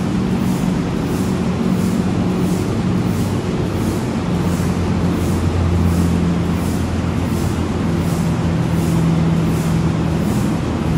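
B&W 2000 eight-cylinder, double-acting two-stroke diesel engine running steadily: a deep, even hum with a regular beat of a little under two a second.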